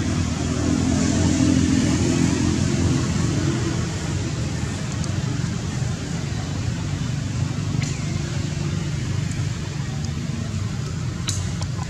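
Steady low rumble of outdoor background noise that swells about a second in and eases by about four seconds, with a couple of sharp clicks near the end.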